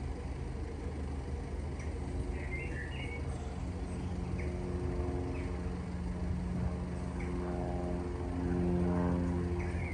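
An engine running with a steady low hum and a droning tone that comes and goes, growing loudest near the end. A few short bird chirps.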